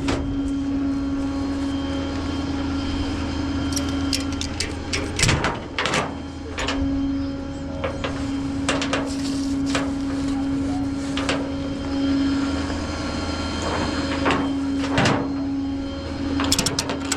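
Tow truck running with a steady mechanical hum, broken by repeated metallic clanks and knocks as the truck is rigged for towing. The hum drops out briefly twice.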